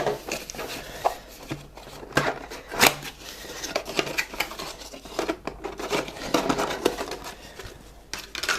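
AMD Wraith Spire stock CPU cooler being lifted out and handled from its box: rustling packaging with a run of irregular small clicks and knocks, the sharpest about three seconds in.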